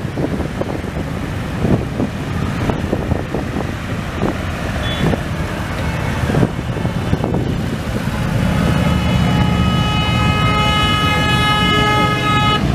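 Harley-Davidson V-twin motorcycles passing one after another at parade pace, their engines running with uneven pops. From about eight and a half seconds in, a horn sounds on one steady note for about four seconds over the engines, then stops.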